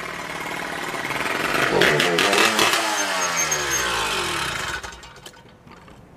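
Two-stroke motorized bicycle engine with a Suzuki RM80 exhaust and carburetor, running as the bike rides up and passes close by: the pitch climbs to a loud peak about two seconds in and then falls away. The sound drops off sharply near the end, followed by a few clicks.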